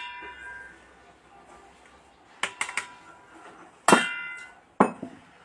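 A stainless-steel blender jar being tapped empty over a sieve on an aluminium pot: scattered metal clinks and knocks, a couple of quick clicks about halfway, and one louder knock about four seconds in that rings briefly like struck metal.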